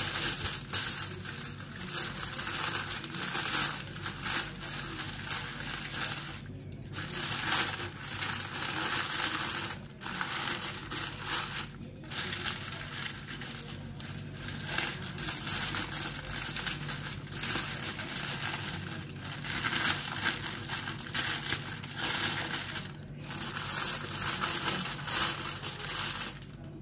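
Aluminium foil crinkling and crumpling as hands fold and crimp it tightly over the edges of a baking tray, continuing with a few short pauses. A steady low hum runs underneath.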